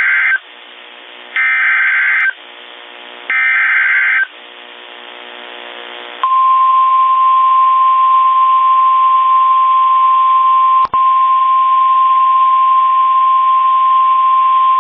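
NOAA Weather Radio emergency alert: the tail of the first SAME header burst and then two more, each about a second of harsh digital warbling a second apart, with radio hiss between them; these data bursts encode the tornado warning. About six seconds in, the 1050 Hz warning alarm tone starts, one steady high tone held about nine seconds with a brief break partway, signalling that a warning message follows.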